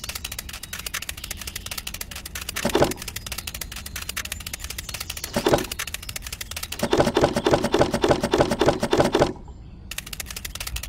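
Cartoon-style sound effects: a fast, steady run of sharp clicks that pauses briefly near the end. Two short pitched squeaks come about three and five and a half seconds in, and a pitched buzzing stretch plays over the clicks from about seven to nine seconds.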